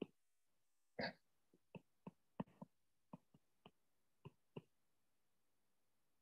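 Stylus tapping and ticking on a tablet's glass screen while handwriting: a string of faint, short, irregular clicks.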